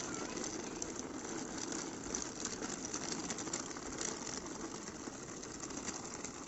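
Small plastic wheels of a baby walker rolling over rough, gritty asphalt: a steady rattle with many small clicks.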